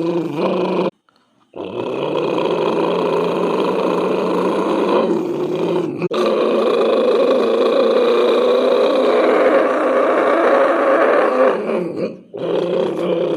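A man's voice imitating vehicle engine noise: a continuous throaty drone with steady pitched bands, broken by a short silent pause about a second in, a brief break near six seconds, and a dip near the end.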